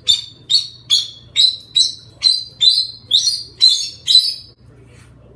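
Cockatoo giving about ten short, harsh screeches in a steady rhythm of roughly two a second, stopping about four and a half seconds in.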